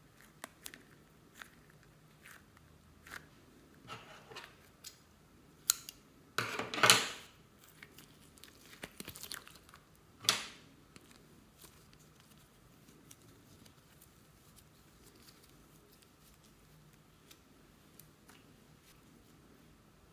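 Slime and soft plastic slime tubs being squeezed and handled: scattered crinkly clicks and crunches. There is a louder crunching stretch about six to seven seconds in and a sharp crunch at about ten seconds, then mostly quiet handling.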